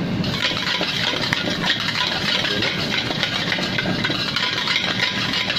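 Egg and ground chilli paste sizzling in a hot wok as a spatula stirs and scrapes it round, with small crackles and scrapes over a steady rush from the gas burner below.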